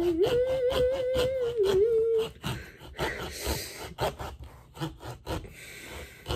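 A long knife sawing into a pumpkin in quick, repeated strokes as the top is cut open. Over the first two seconds a man hums one long held note that steps up in pitch.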